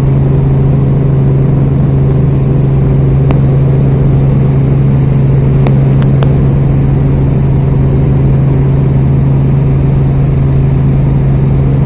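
Helicopter engine and rotors running, a loud steady drone with a constant low hum.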